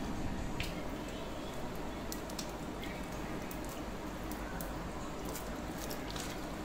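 Scattered light clicks and crackles of a clear plastic bottle being handled and tipped over raw chicken in a plastic bowl, over a steady low background noise.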